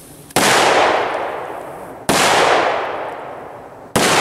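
Three Cialfir Trueno 4 Loki firecrackers (Category F3, 0.7 g of flash powder each) exploding one after another, a little under two seconds apart. Each sharp bang is followed by a long echoing decay among the trees.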